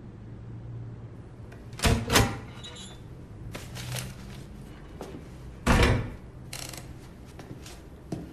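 A few sharp knocks or thumps over a low steady hum: two close together about two seconds in, a louder one near six seconds, and smaller ones between.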